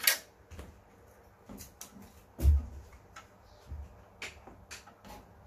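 Clicks and knocks of a TV circuit board being handled against the set's sheet-metal chassis, with a heavier thump about two and a half seconds in.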